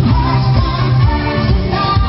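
A woman singing a pop song live into a microphone, amplified, with keyboard accompaniment and a steady bass line; she holds long, gliding notes.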